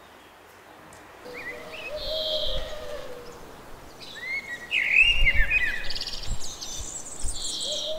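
Songbirds singing: chirps, short sweeping whistles and buzzy notes beginning about a second in and busiest past the middle, with a lower drawn-out call early on and again near the end. A few low thumps, such as wind on the microphone, come in the second half.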